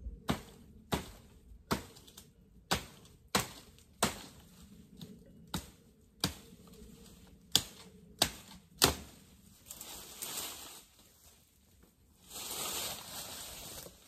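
About a dozen sharp, dry knocks of a branch being chopped at to cut it off a bush, roughly one every half second to second. Near the end, leafy rustling as the cut branch is pulled free through the foliage.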